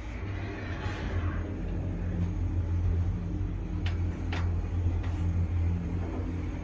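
KONE ProSpace machine-room-less traction elevator car travelling upward, heard from inside the cab. It sets off and runs with a steady low rumble and hum. Two short clicks come about four seconds in.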